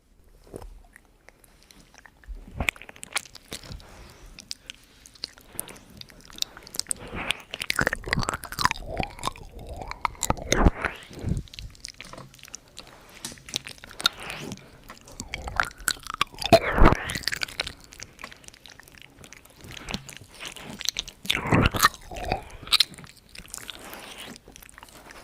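ASMR mouth sounds: irregular clicks and smacks of lips and tongue, with louder clusters about eleven, seventeen and twenty-two seconds in.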